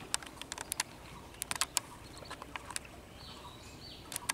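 Small, irregular splashes and drips of water as hands work in shallow pond water, heard as scattered sharp ticks in a few quick clusters.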